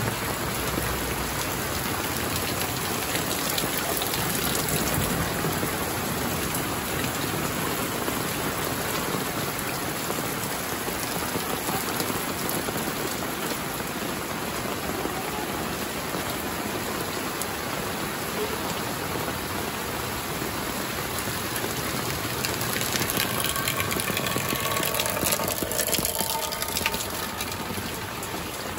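Heavy rain falling steadily, an even hiss of drops striking surfaces.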